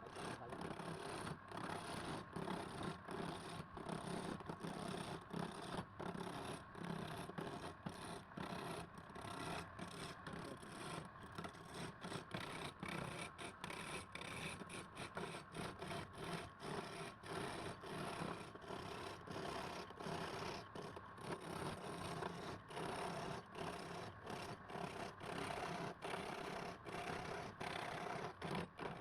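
Repeated rasping rub strokes by hand, about two to three strokes a second, keeping up a steady back-and-forth rhythm.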